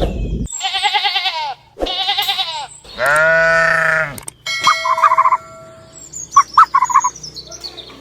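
Farm animal bleating: two short wavering bleats, then a longer, steadier bleat, followed by a few short, high chirping calls.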